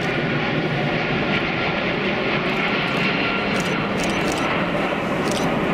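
Cargo jet's engines running, a steady, even rush of noise with no rise or fall.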